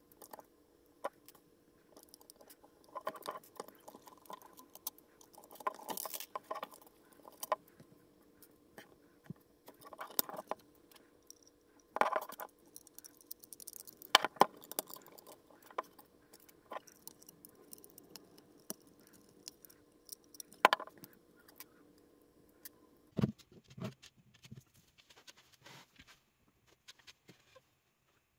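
Small plastic LEGO pieces clicking and rattling as they are handled and pressed onto a brick model, in scattered clicks and short bursts of rattling.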